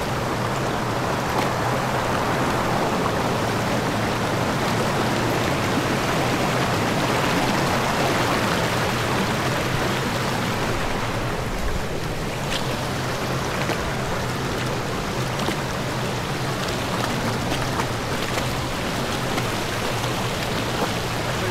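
Shallow creek water running over rocks, a steady rush of flowing water close to the microphone.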